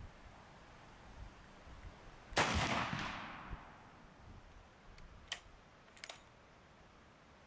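A single shot from a Mauser Model 1871 single-shot bolt-action rifle in 11 mm, its report dying away over about a second. A few sharp metallic clicks follow about three seconds later.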